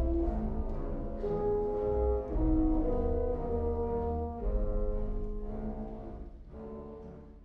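Orchestral background music with long held notes, fading out slowly.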